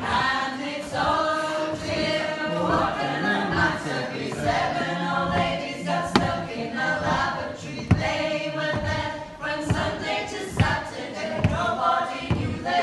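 A group of women singing unaccompanied in harmony, with two sharp knocks near the middle.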